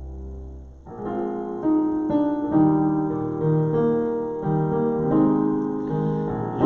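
Piano-voiced keyboard playing a short instrumental introduction of chords and melody notes. It starts about a second in, after a low held chord dies away.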